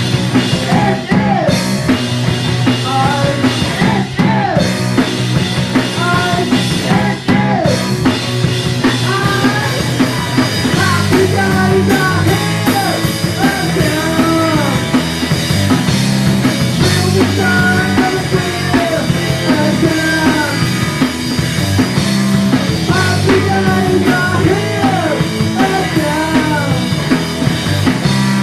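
Loud rock music: a band with drum kit and bass, with a bending melody line on top.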